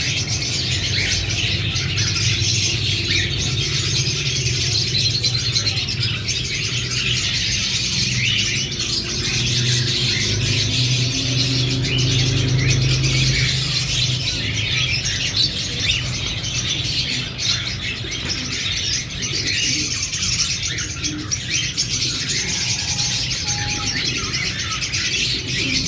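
Cockatiels chirping continuously, many overlapping chirps at once, over a low steady hum.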